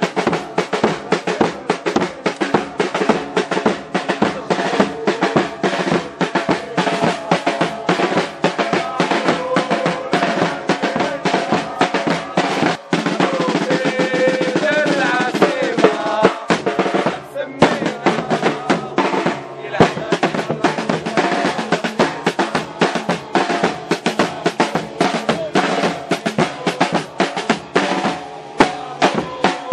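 Several marching snare drums and a bass drum played together with sticks in a fast, driving rhythm of many strokes a second, with a couple of brief breaks about halfway through.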